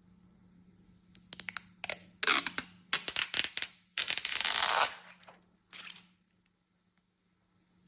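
Hands handling smartphone packaging: a quick run of sharp clicks and taps, then several longer rasping rustles, like paper or plastic film being pulled and rubbed, with the last one about six seconds in.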